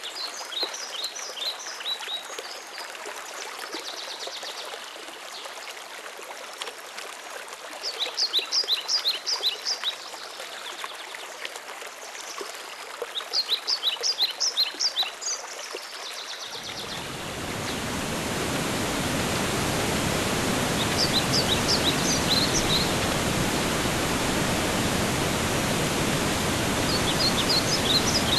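Steady rush of running water with a songbird repeating a short phrase of quick, high, falling notes every few seconds. About two-thirds of the way through, the water noise suddenly becomes louder and deeper while the bird keeps singing.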